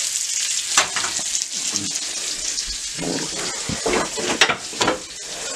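Steady sizzle of pork loin searing in a hot pan, with a few sharp knocks of cookware being handled about a second in and again near the end.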